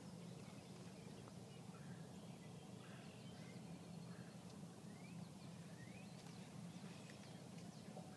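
Quiet outdoor ambience with faint birdsong: scattered short chirps and a few rising whistles, over a low steady hum.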